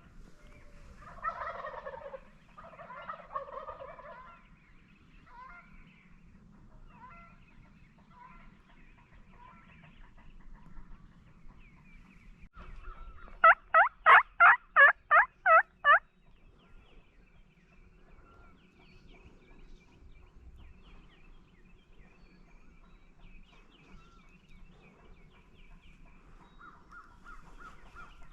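Wild turkey calls: two rattling gobbles in the first few seconds, then a loud, evenly spaced series of about eight yelps, roughly three a second, around halfway through.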